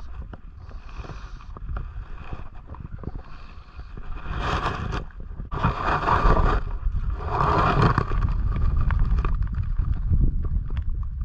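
Water splashing and sloshing around a wader's feet in a shallow river, with louder bursts of splashing about four, six and eight seconds in, over a low wind rumble on the microphone.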